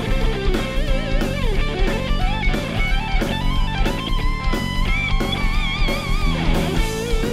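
Background rock music: electric guitar playing held, bending notes with vibrato over a steady drum beat.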